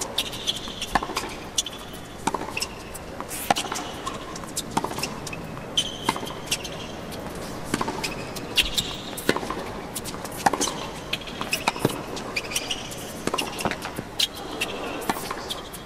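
A tennis rally on a hard court: a string of sharp racket-on-ball strikes, with short high squeaks of shoes on the court between them.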